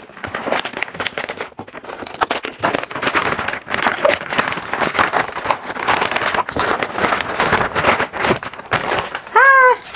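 Packaging being unwrapped by hand: continuous crinkling and rustling with many small crackles, and a short voiced exclamation near the end.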